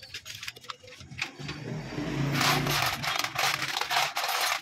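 Metal parts of a motorcycle clutch assembly clicking and rattling as it is worked by hand onto the shaft of an open engine crankcase. The clatter turns louder and more rapid about halfway through, over a low hum.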